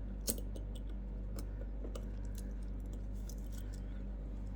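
Small scattered clicks and scrapes of a steel watch bracelet end link and spring bar being worked into an Omega Speedmaster's lugs, with one sharper click about a third of a second in. A steady low electrical hum runs underneath.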